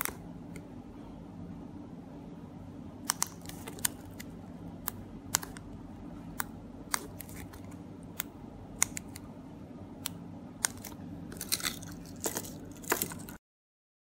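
Sharp, irregular clicks of the buttons on a four-button 433 MHz copy remote key fob being pressed repeatedly, over a steady low hum. The sound cuts off abruptly near the end.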